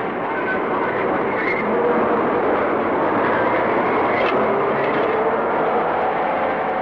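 A steady, dense engine-like roar with a faint tone that slowly falls in pitch, like aircraft passing overhead.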